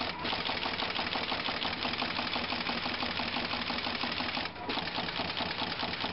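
Automatic through-hole component insertion machine running, its insertion head working with a rapid, even mechanical clatter. The clatter dips briefly about four and a half seconds in.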